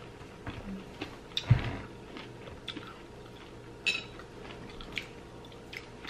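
Close-up chewing of crunchy fried pork rinds, with scattered short crunches and mouth clicks and a dull knock about a second and a half in.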